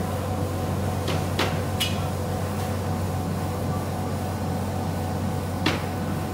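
Fabric laser-cutting machine running with a steady low hum and faint steady tones. A few sharp clicks break through, three close together about a second in and a louder one near the end.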